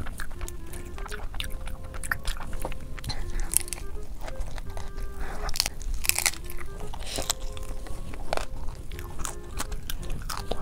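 Close-miked eating: biting, crunching and chewing of crisp, saucy food eaten by hand, with many short crackles. A simple stepping background tune plays underneath.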